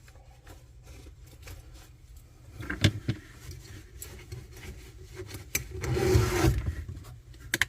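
Hand tools working on a copper water pipe and its shut-off valve fitting: metal rubbing and scraping with scattered clicks and knocks, and a louder rasping scrape about six seconds in.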